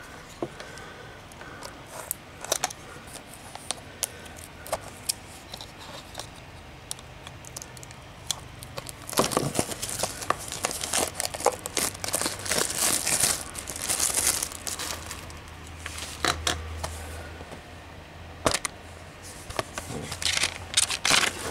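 Plastic shrink-wrap on a Blu-ray case crinkling and tearing as it is slit and peeled off, loudest in a dense stretch around the middle, with scattered clicks of the plastic case being handled. Near the end the case is opened.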